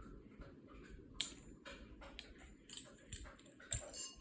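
Harbor Breeze Springfield 52-inch ceiling fan running on medium speed: a faint steady low hum and air rush, with scattered light clicks.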